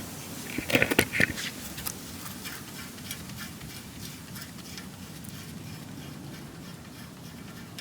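A quick run of clicks and knocks from hand tools on metal in the first second or so, then a steady low background hum with scattered faint ticks.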